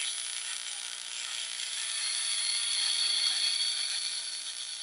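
Homebuilt 7 MHz (40-metre) regenerative receiver's speaker giving out band noise: a steady hiss with faint crackle and several thin, steady whistling tones.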